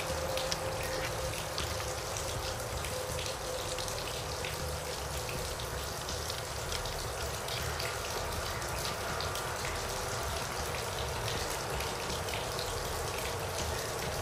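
Steady background hiss with faint, scattered light clicks of small screws and plastic parts being handled and started by hand into an outboard motor's plastic ignition timing base. A faint steady tone fades out about five seconds in.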